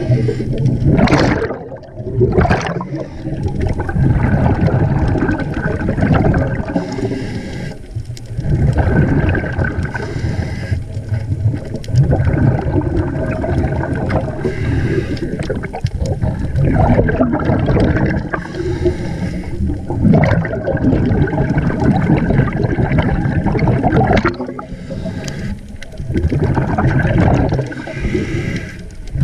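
Scuba diver's breathing heard underwater: exhaled bubbles rumbling and gurgling out of the regulator in repeated surges, with short dips between breaths.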